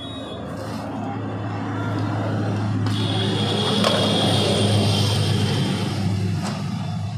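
A motor vehicle's engine going past: a low, steady hum that grows louder to a peak about four seconds in, then fades.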